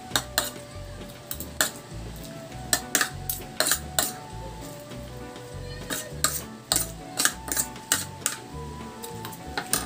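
Metal spoon and fork clinking and scraping against a ceramic plate while picking apart fish, a run of sharp clicks that ring briefly, over quiet background music.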